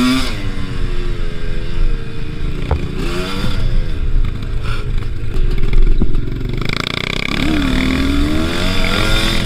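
Two-stroke Kews enduro motorcycle engine being ridden, its revs rising and falling several times with the throttle, with a sharp click about two and a half seconds in.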